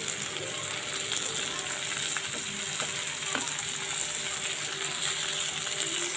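Freshly added shredded cabbage sizzling steadily in hot oil in a kadai, with a few faint ticks.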